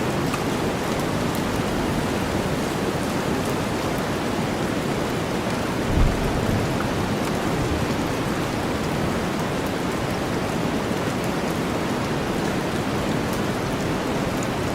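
Steady rain blended with deep white noise: a dense, even hiss with drops pattering on a surface. About six seconds in comes one short low thump.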